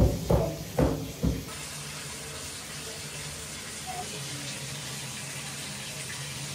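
A few short knocks, then from about a second and a half in, water running steadily.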